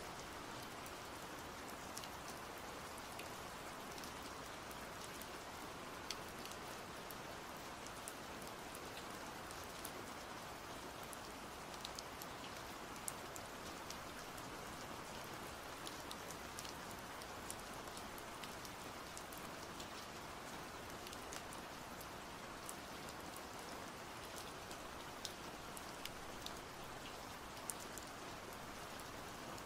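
Steady rain: an even hiss with scattered single drops ticking sharply.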